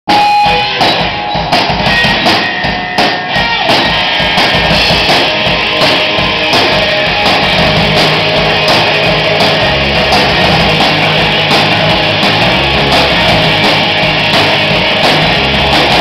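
Loud rock band playing live on electric guitars and a drum kit: a few separate hits with short gaps in the first four seconds, then continuous playing.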